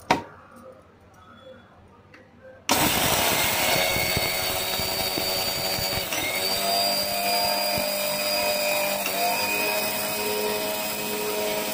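A click, then about three seconds in an electric mixer grinder switches on abruptly and runs loud and steady with a high whine, grinding spices in its steel jar. The pitch of the whine shifts a few seconds after it starts.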